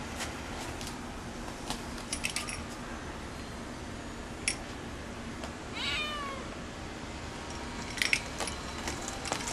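A domestic cat meows once about six seconds in, a short call that falls in pitch, amid a few scattered sharp clicks and taps.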